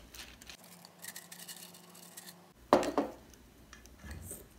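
Kitchenware clinking: light taps, then one sharp clink with a short ring about two and a half seconds in as a silicone basting brush is set down in a small bowl of oil, followed by a softer scrape as a cup of batter is taken up from a plate.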